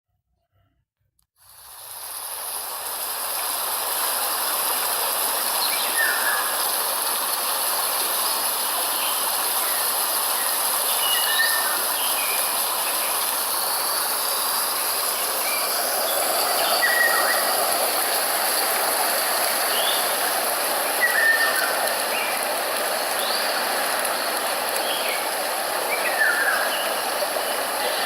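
Steady rush of flowing water that fades in about a second and a half in, with short bird chirps scattered over it.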